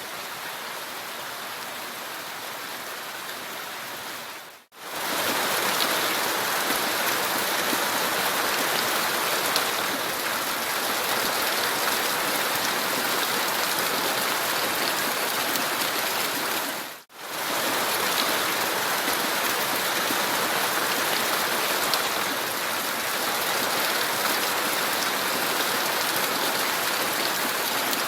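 Steady rushing noise of a recorded nature ambience, cut off abruptly for an instant about 5 seconds in and again about 17 seconds in, and louder after the first cut.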